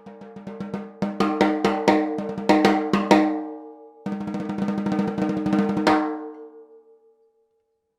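Pearl Ultracast 14 x 6.5-inch snare drum played with sticks: a roll that swells into about ten separate loud strokes, then a second roll from about four seconds in that ends on an accent near six seconds. The drum then rings out, a held tone lingering after the strokes die away.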